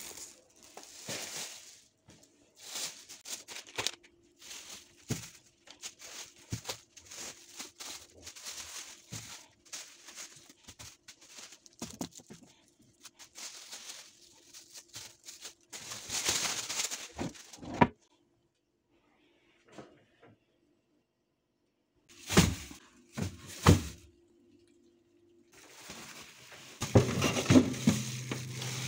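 Thin plastic grocery bags rustling and crinkling in handled bursts as groceries are taken out, with a few light knocks of items being set down. It goes nearly silent for a few seconds past the middle, then two loud rustles, and near the end the crinkling grows louder over a low steady hum.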